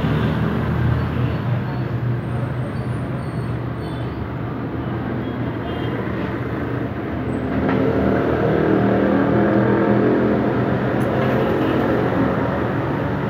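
Motor traffic with a vehicle engine running close by, a steady low hum under a noisy din that grows louder about eight seconds in.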